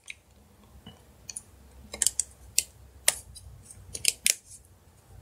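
Light clicks and taps of small plastic phone parts being handled and snapped into place, sparse at first, then a run of sharper single clicks from about two seconds in.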